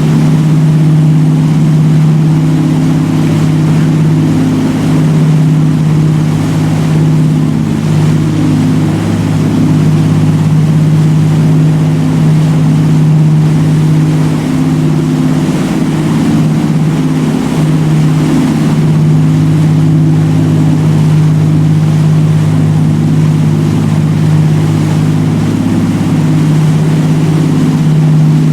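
Motorboat engine running at a steady speed: a loud, even drone with only slight wavering in level, over a light hiss of water and wind.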